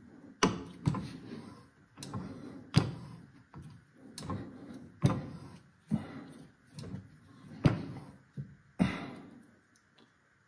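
A heavy steel bar clamp being swung and jolted to torque a Ruger Mark-series barrel into its receiver through a 3D-printed clamp jig: about a dozen heavy knocks, roughly one a second, as the barrel is worked tight over the last bit of its turn.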